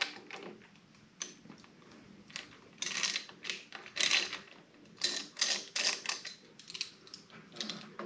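Irregular bursts of small metallic clicks and rattles as a Torx driver works at the screws of a Harley-Davidson handlebar switch housing.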